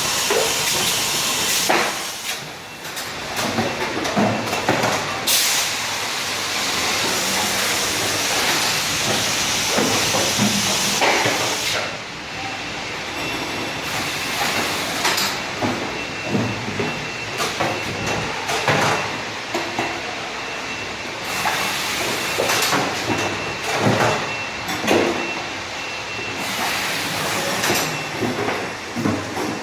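Stainless-steel automatic carton erector and sealer running: a steady hiss with repeated knocks and clacks of its mechanism, and a faint high tone joining partway through.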